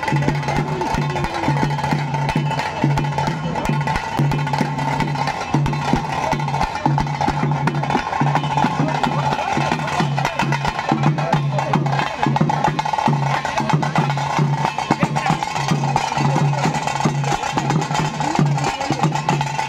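Tase drums of a tiger-dance troupe beaten fast with sticks in a dense, driving rhythm, with a low pulsing beat under it and a steady high held tone running over the drumming.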